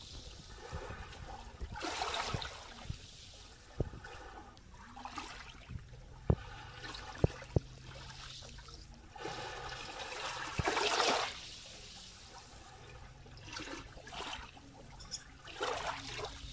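Small waves lapping at a shallow sandy, pebbly shore, each ripple washing and fizzing over the sand every few seconds, the largest wash about two-thirds of the way through. A few short, sharp low thumps come in the middle.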